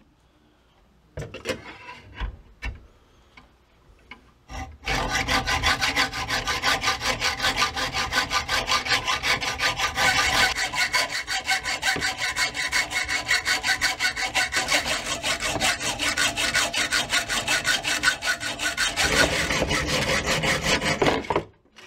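Hacksaw cutting through the steel barrels of a double-barrelled 12-gauge shotgun held in a miter box. A few light knocks come first as the saw is set in place. About five seconds in, fast, even back-and-forth strokes with a metallic ring begin and run until the blade cuts through, stopping abruptly just before the end.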